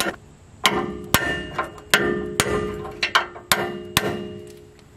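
Repeated hammer blows on a drift, driving the old lower kingpin bearing race out of a heated Dana 60 steering knuckle. There are about two strikes a second, each with a short metallic ring.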